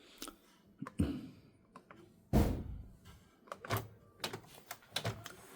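Epson EcoTank printer's mechanism clicking and knocking during a printhead cleaning cycle, with one louder thunk about two and a half seconds in.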